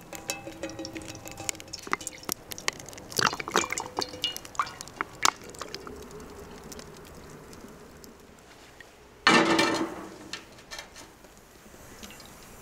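Cooking oil pouring into nonstick frying pans on a metal stovetop, with light clinks and taps of the pans and bottle. About nine seconds in comes one louder, brief clatter.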